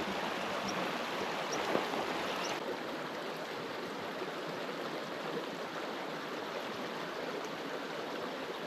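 Small stream running: a steady rush of flowing water.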